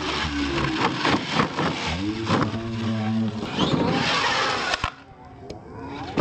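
Radio-controlled monster trucks' electric motors whining, rising and falling in pitch as they are throttled, with several sharp knocks from jumps and landings on gravel. A burst of hiss about four seconds in, then the sound drops away about five seconds in.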